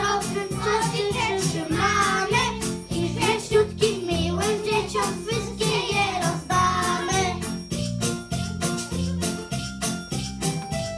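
A group of young children singing a song over backing music with a steady beat. The singing stops about seven seconds in and the music carries on alone.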